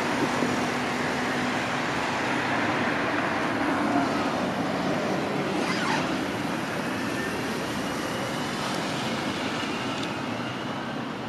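A train running past on the line, a steady rolling rush of wheels on rail that slowly fades, with a faint high whine in the later seconds.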